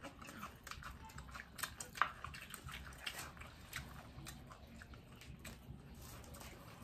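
People biting and chewing crispy fried fritters: irregular crisp crunches and crackles, a few sharper bites standing out.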